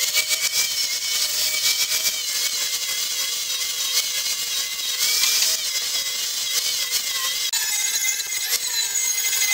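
Angle grinder grinding down the welds on a steel-pipe and plate lawn edger: a steady motor whine over the hiss of the disc on steel.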